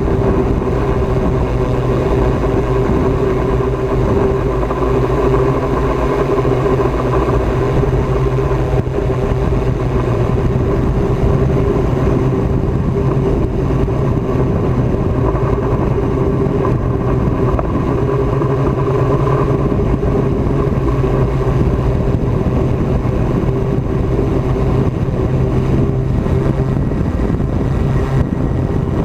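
Small quadcopter drone's motors and propellers whining steadily in flight, heard from the camera mounted on it.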